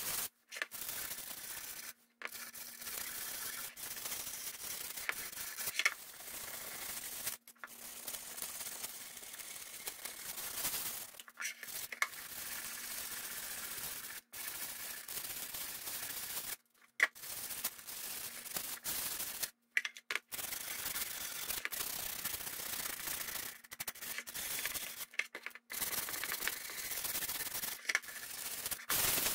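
Folded 80-grit sandpaper rubbed by hand over a hardened resin coat: continuous scratchy sanding strokes that stop briefly every few seconds. The sanding scuffs the old coat so the next resin coat can grip.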